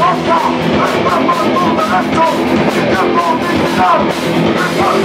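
Hardcore punk band playing live: distorted electric guitars, bass and a pounding drum kit, with a vocalist shouting into a microphone over them.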